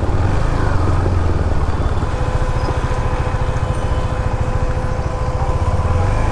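KTM Duke 390's single-cylinder engine running at low speed as the motorcycle rolls in, settling into an even, pulsing idle about two seconds in.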